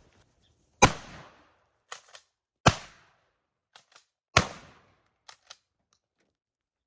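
Pump-action 12-gauge shotgun fired three times, about two seconds apart, loaded with number 8 birdshot; after each shot a quick pair of clicks as the pump is worked back and forward to chamber the next shell.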